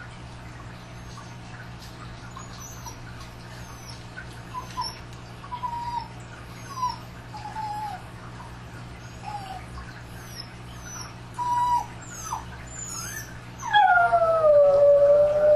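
A dog whining in short, high cries, then, nearly two seconds before the end, breaking into a long howl that drops in pitch and then holds steady. The howl is the loudest sound. Faint high chirps and a steady low hum sit underneath.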